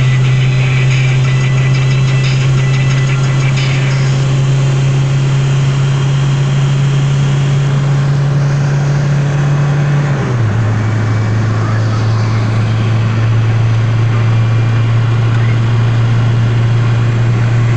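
Car engine and road noise inside the cabin at motorway speed, about 150–160 km/h: a loud, steady low engine drone over tyre and wind noise. About ten seconds in the drone drops in pitch and then holds steady at the lower note.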